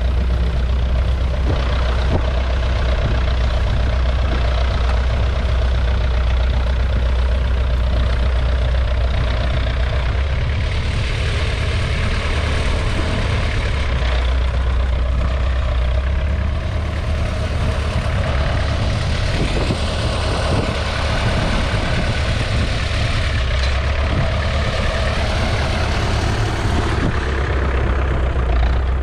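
1969 McCormick 434 tractor's 2.5-litre four-cylinder diesel engine running steadily.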